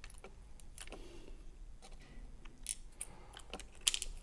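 Scattered light metallic clicks and ticks of small lock parts being handled: key pins and tools from a disassembled pin tumbler lock, with the loudest click near the end.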